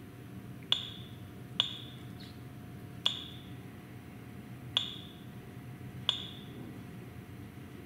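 Button presses on the keypad of a Greenlee 01711 Deluxe Pendant, the controller for an 855 electric conduit bender: five clicks, each with a short high beep, about one to two seconds apart, while a faint steady hum continues underneath.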